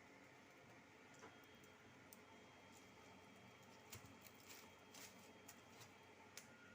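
Near silence: faint room tone with a few scattered soft clicks and taps, most of them in the second half.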